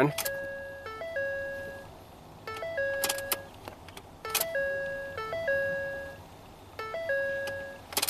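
Ford F-150 dashboard warning chime sounding at key-on, a short stepped electronic tone with a held note, repeating about every two seconds, four times. A few sharp clicks come between the chimes.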